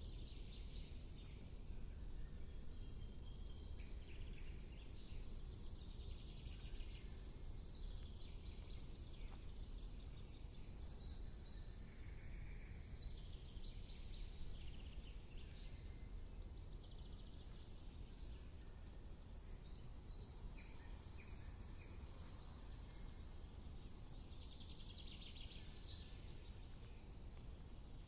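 Songbirds chirping and trilling in short, scattered phrases over a steady low outdoor rumble.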